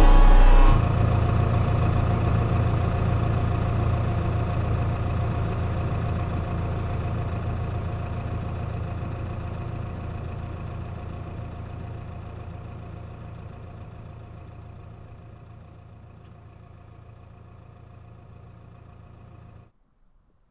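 Diesel engine of a single-drum roller running steadily as the machine drives away, its hum fading gradually before cutting off abruptly near the end.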